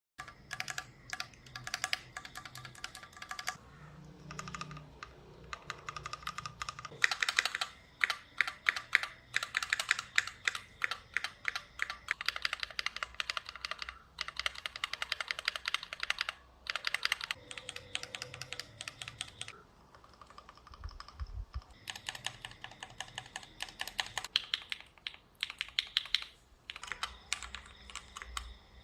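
Fast typing on a stock Keychron Q1 aluminium-case mechanical keyboard: runs of rapid key clicks broken by short pauses. The stock board's ringing ('vang') comes through despite its two factory foam layers, which the owner finds extremely annoying and the reason the board needs modding.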